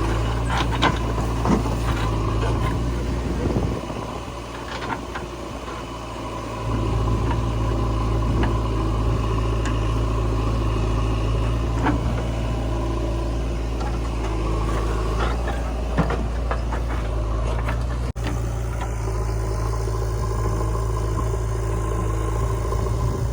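Diesel engine of a backhoe loader or tractor running steadily, with scattered knocks and clanks from the work. The engine drops lower for a couple of seconds about four seconds in.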